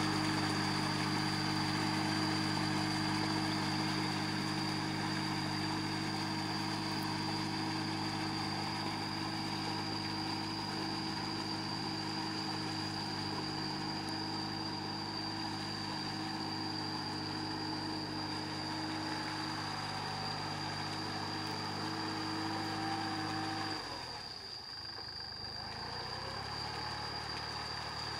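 Kubota tractor's diesel engine running steadily under load as it drags a leveling board through a flooded rice paddy on cage wheels. About 24 seconds in the sound drops and its pitch changes.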